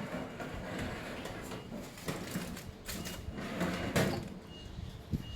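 Metal tray clattering and scraping as it is slid into an oven, with a few sharp knocks.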